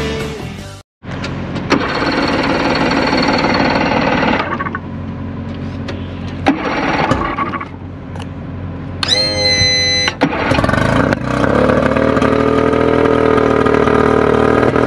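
Engine running, with a brief high whine about nine seconds in and steadier running from about ten seconds.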